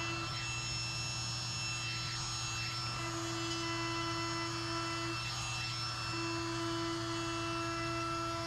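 DeWalt cordless compact router running steadily with a high whine, its bit cutting along the edge of an end-grain hardwood cutting board. A lower tone drops out and comes back a few times as the cut goes on.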